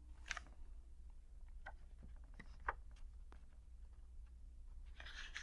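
Quiet pause on an old recording: a steady low hum with a few faint, scattered clicks, and a soft rustle near the end.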